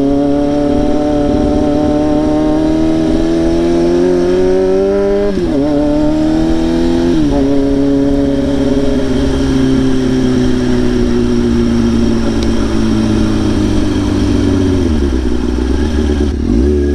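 Kawasaki ZX-6R inline-four sport bike with a straight-piped exhaust, ridden at speed. The engine note climbs, drops sharply with upshifts about five and seven seconds in, then falls slowly as the rider eases off. Wind rumble runs underneath.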